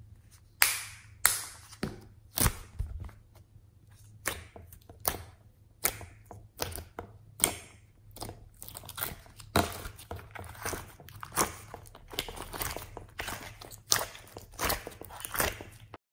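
Thick slime pressed and squeezed by hand, giving an irregular run of sharp crackles and pops from trapped air, several a second, with soft squelching between them.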